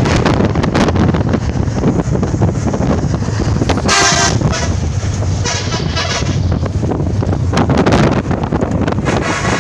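Wind and road noise from a moving vehicle, with a vehicle horn honking briefly about four seconds in and again, fainter, around six seconds.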